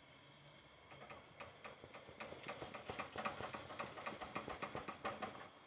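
Silicone balloon whisk beating milk in a nonstick pan, a quick, faint run of soft clicks and taps several times a second as the wires knock the pan. Cornflour slurry is being whisked into the hot milk so that it does not form lumps.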